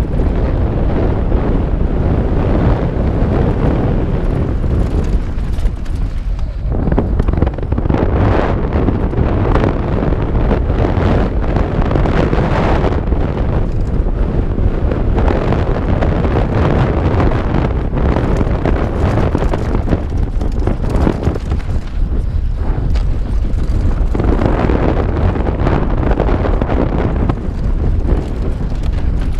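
Wind rushing over the helmet camera's microphone, over the steady rumble and uneven rattle of a mountain bike descending a dirt trail at speed.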